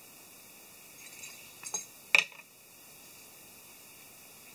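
A few light metallic clicks and clinks as gear is handled on a metal tree stand, the loudest a sharp clink a little over two seconds in.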